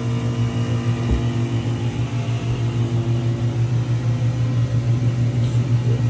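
Electric pump motor running with a steady low hum, circulating antifreeze through a newly charged closed-loop heating circuit.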